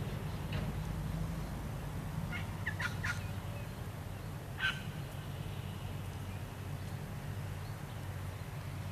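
A diesel excavator engine running steadily at a low idle, with a few short, high bird-like chirps over it, the loudest about four and a half seconds in.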